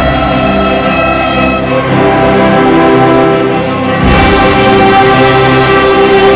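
Church orchestra and band playing an overture: held chords, with a fuller, louder entry about four seconds in.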